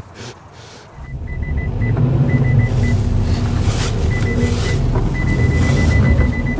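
A Datsun car's engine revving hard, its front wheels churning in deep snow as it tries to get out while stuck. The rumble starts about a second in, and a high electronic beep sounds in short runs, then holds steady from about five seconds in.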